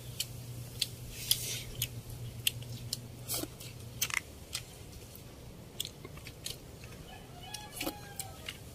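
Eating sounds: chewing and lip-smacking as people eat rice and crab with their fingers, heard as scattered sharp clicks. A low steady hum runs under it for the first few seconds, then stops.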